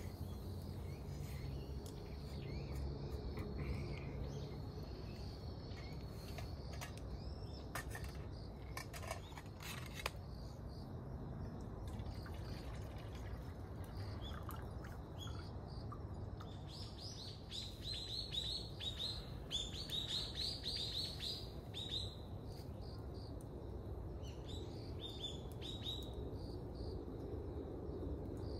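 A bird calling: a quick run of short, high notes, each falling in pitch, several a second, starting a little past halfway and lasting about five seconds, with a few more notes later. Under it a steady low outdoor hum, with a few faint clicks earlier on.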